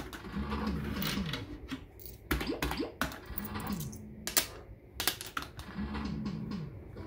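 Maygay Great Escape fruit machine being played: sharp clicks of buttons and reels, with the machine's short electronic falling-tone sound effect three times.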